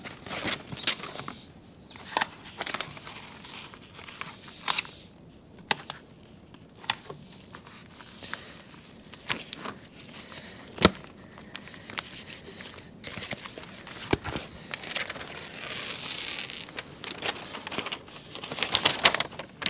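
ZIP System flashing tape and its paper release liner crinkling and crackling as they are handled and peeled apart, with scattered sharp crackles and a longer tearing hiss near the end.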